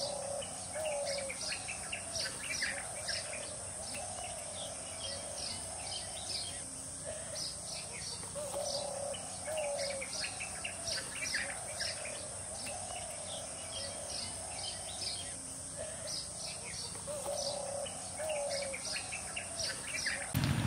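Birds chirping and calling throughout, many quick high chirps over lower repeated warbling calls, with a steady high-pitched drone underneath.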